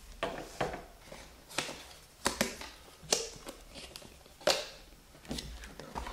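White cardboard box being opened and handled by hand: flaps pulled back and the inner box slid out, giving a string of irregular cardboard taps, scrapes and rustles, the loudest tap about four and a half seconds in.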